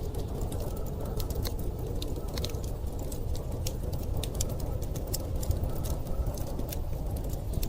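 Wood fire in a fireplace crackling, with irregular sharp pops several times a second over a steady low rumble of storm wind.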